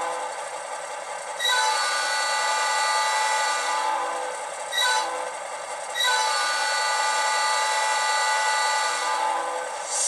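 Diesel locomotive multi-chime air horn, played by a LokSound v5 sound decoder through two small ESU sugar-cube speakers in an HO scale Atlas MP15DC. It gives a long blast, a short toot, then another long blast, completing the long-long-short-long grade-crossing signal.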